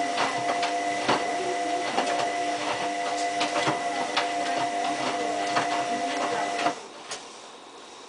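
Hotpoint Aquarius+ WMF740 front-loading washing machine tumbling its load in the main wash: a steady motor whine with irregular knocks from the wet laundry falling in the drum. It cuts off suddenly near the end as the drum stops turning, a pause in the wash action.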